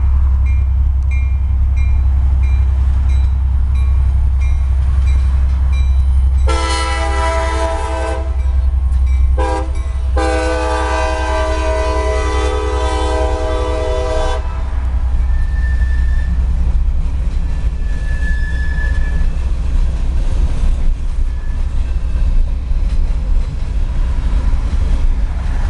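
CSX freight locomotive's multi-chime air horn sounding loud blasts: a long blast, a very short one, then a longer blast of about four seconds. Under it runs the steady low rumble of a pickup truck driving alongside, heard from inside the cab.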